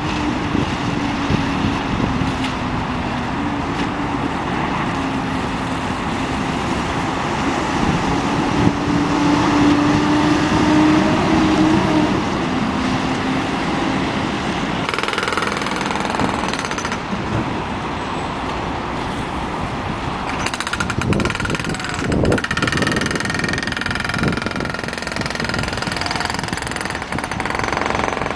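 A large vehicle running close by in a city street, with a rapid low rattle and a steady hum that wavers slightly in pitch for about the first half. About halfway through the sound changes, and several knocks follow.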